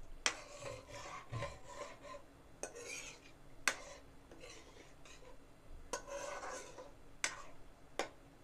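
A metal ladle scraping round the bottom of a metal kadai while stirring a watery curry, with several sharp knocks of the ladle against the pan.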